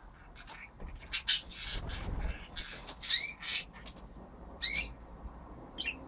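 Budgerigars giving short, harsh chirps and squawks in separate bursts: a cluster about a second in, a few more around three seconds, and single calls near the end.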